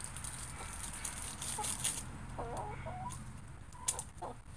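Hens clucking softly a few times while pecking food from a hand, with one sharp click near the end.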